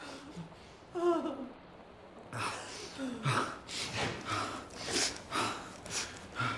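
A man crying: a short falling whimper about a second in, then a run of gasping, sniffling sobs about two a second.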